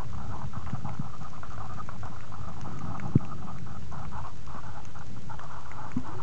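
Muffled underwater noise picked up by a compact camera sealed in a soft plastic waterproof bag: a steady dull hiss with an irregular crackle through it, and one sharp click about three seconds in.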